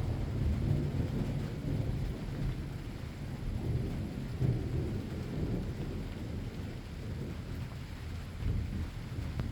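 Rolling thunder rumbling low and slowly fading, with smaller swells later on, over steady falling rain.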